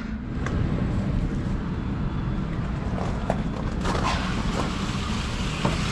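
A cooling tower's make-up water valve on an insulated supply line being opened by hand: a few light clicks and knocks from the valve handle over a steady low rumble.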